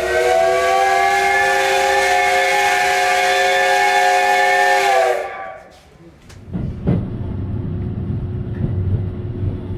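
Steam whistle of the C12-class steam locomotive No. 66, blown wide open in one long, steady blast of several blended tones that sags slightly in pitch as it shuts off about five seconds in. After a sudden drop comes a low train rumble with a few sharp knocks.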